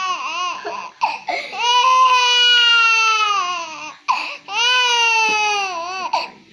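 Young child crying in fright: two long wails, each sagging in pitch at the end, with short gasping breaths and sobs between them.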